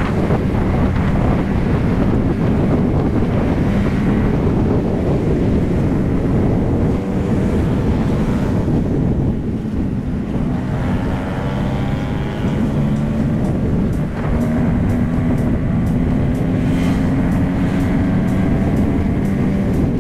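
Motorcycle engine running under way, with wind buffeting the microphone; the engine note climbs in pitch about halfway through as the bike accelerates.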